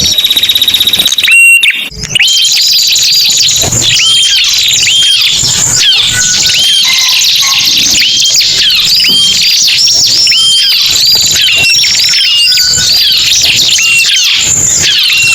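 A dense, loud bird-lure recording of ciblek and prenjak (prinia) calls layered together: many high, rapid chirps and trills repeating over each other without pause, with a brief break in the sound about two seconds in.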